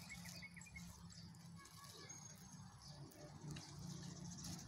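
Near silence: faint outdoor background with a low hum.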